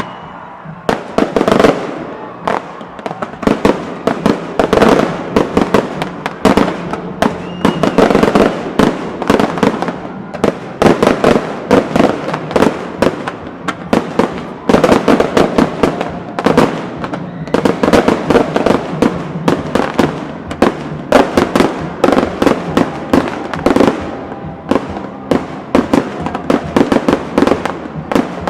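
Fireworks display: a rapid, continuous barrage of loud bangs and crackling shell bursts, starting about a second in and coming in dense waves.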